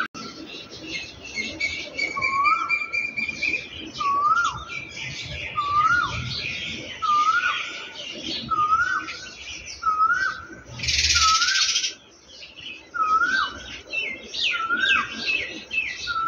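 Birds chirping: one bird repeats a short rising-and-falling call about once a second, over quicker high twittering from others. About eleven seconds in, a hiss lasts about a second.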